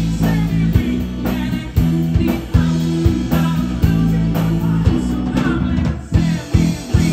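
Live rock band playing: electric guitars, bass and drums with a lead vocal. It breaks into a few short, hard accent hits with gaps between them near the end, closing the song.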